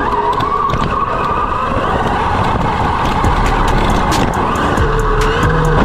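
Radio-controlled car driving hard on the dirt, its motor whine wavering up and down in pitch, with scattered clicks and knocks.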